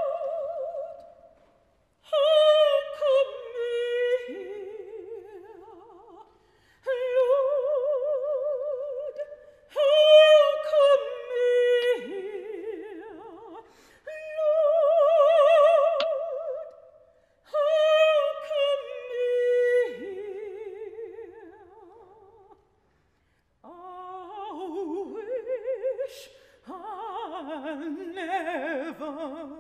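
Operatic soprano voice singing unaccompanied with a wide vibrato, in long held phrases broken by short pauses; the last few phrases sit lower in pitch.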